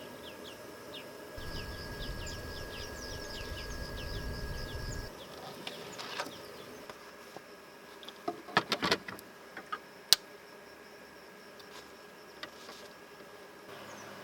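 Outdoor insect buzz, a steady high drone, with a run of rapid short chirps over the first few seconds. A cluster of sharp clicks or knocks follows about eight to nine seconds in, and one sharp click, the loudest event, comes about ten seconds in.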